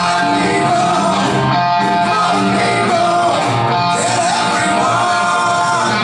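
Rock band playing live, with electric guitars, bass, drums and keyboards under a male lead vocal, loud and steady, heard from the crowd.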